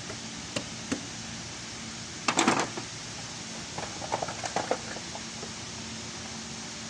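Two sharp knocks, then a short loud clatter about two seconds in and a run of lighter taps, like tools or parts being handled, over a steady hiss and low hum.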